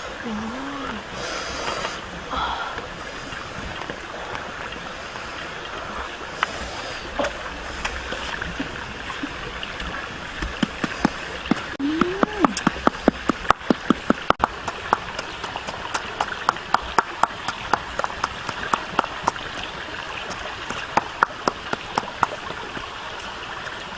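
Running stream water, steady throughout, with a rapid series of sharp taps, about three or four a second, from about ten seconds in until near the end.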